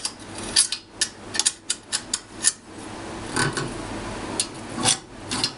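Metal parts of a homemade jigsaw table being handled and adjusted by hand: a string of irregular light clicks and clinks.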